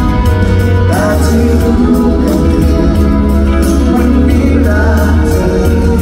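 Live pop concert music through an arena PA: a band with heavy bass and a steady drum beat, and a male voice singing over it.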